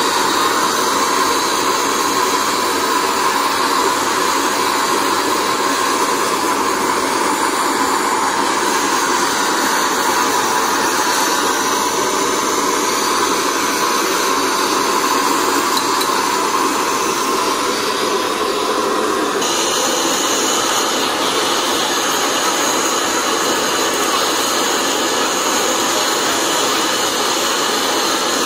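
Gas blowtorch burning with a steady hiss under a pan of melting lead. The sound changes abruptly about two-thirds of the way through.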